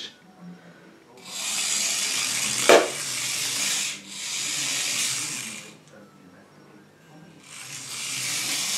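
Small remote-control toy car's electric motor and wheels whirring in three spells of a couple of seconds each, with a sharp knock early in the first spell.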